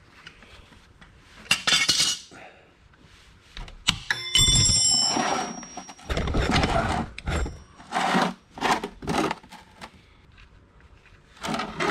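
A wrench working the oil drain plug on a Yamaha Ténéré 700, with metallic scraping and one sharp clink that rings like a bell about four seconds in, then oil splashing out of the drain hole into a metal drain pan in uneven bursts as the plug comes out.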